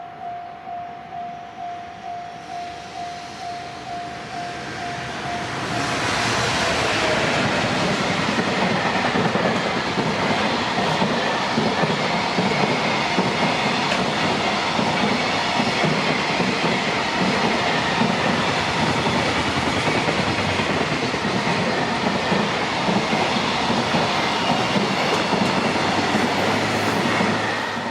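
A Japanese level-crossing alarm ringing in a steady pulse about twice a second. From about six seconds in, a JR Freight train passes close by, loud and continuous, drowning out the alarm until the sound cuts off sharply near the end.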